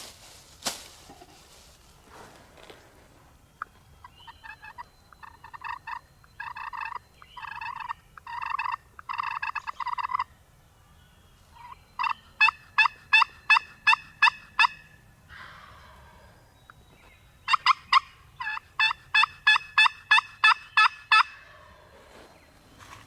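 Turkey yelping in three runs. The first run is of longer, rasping notes that grow louder; the next two are quick strings of about ten sharp yelps each, about four a second.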